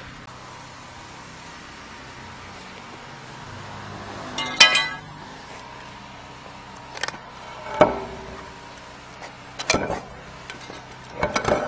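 A steel hook rod clinking and knocking against a manhole cover as it is worked into the cover and used to pry it up. Several separate sharp metallic knocks, the first with a brief ring, then a quick cluster of knocks near the end as the cover comes loose.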